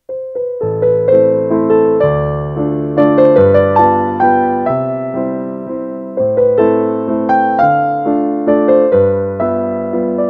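Background music on piano: a gentle melody of struck, fading notes over chords, about two notes a second.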